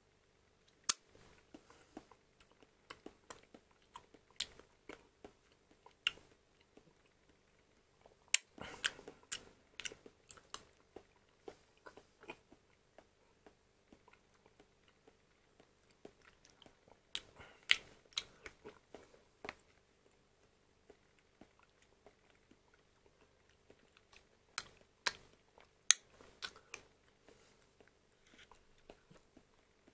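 Metal spoon clicking and scraping against a plastic yogurt cup while stirring and scooping thick creamy yogurt. Scattered sharp clicks come in clusters separated by quieter gaps, with a softer squelchy stirring sound about eight seconds in.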